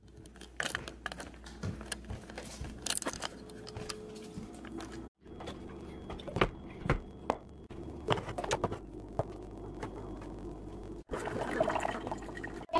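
Scattered footsteps, knocks and clinks of household movement, broken into short pieces. Near the end there is a louder stretch of liquid-like noise.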